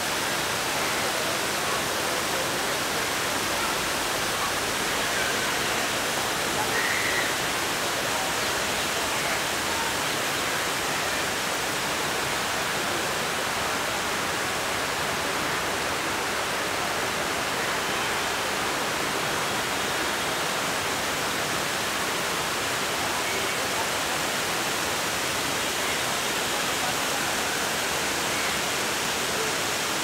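Water pouring down a tiered cascade water feature in a steady, even rush.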